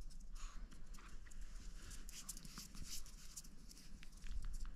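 Pomeranian making odd pig-like noises through a plush toy held in its mouth, in short irregular bursts, with its claws clicking on the tile floor.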